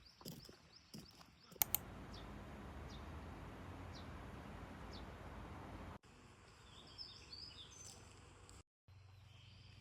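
Quiet outdoor ambience in edited pieces: faint bird chirps and light clicks, two sharp clicks, then a steady rushing noise for about four seconds, then birds chirping again over a low hum.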